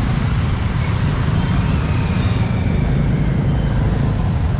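Busy city street traffic: a steady, even rumble of motorbike and other vehicle engines.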